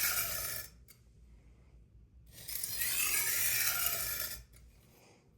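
A chef's knife edge drawn along a wet 220-grit sharpening stone in long strokes, a gritty scrape of steel on stone. One stroke ends early, and a second stroke of about two seconds starts about two seconds in. The strokes are made at about 15 to 20 degrees to set the edge angle.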